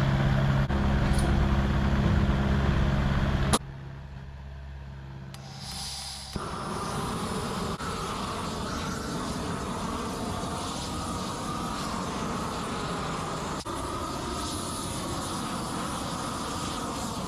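A steady low motor hum stops abruptly a few seconds in. After a quieter stretch, a propane weed burner's open flame burns with a steady rushing roar as it scorches the surface of freshly carved wood.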